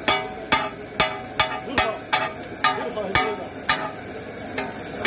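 Steel spatulas striking and scraping a flat iron griddle about twice a second, each clang ringing briefly, as chicken is chopped on it, with frying sizzle underneath. The strikes thin out and soften near the end.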